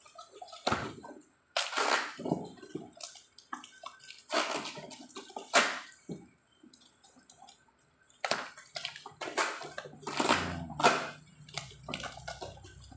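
Plastic bubble wrap and packing tape crinkling and tearing as a parcel is cut open with a knife, in irregular rustles and rips with short pauses.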